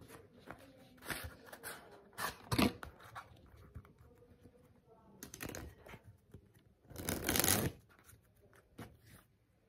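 A deck of Bicycle playing cards being handled: cards slide, flick and click against each other as the deck is spread and thumbed through, with a longer rush of card noise about seven seconds in.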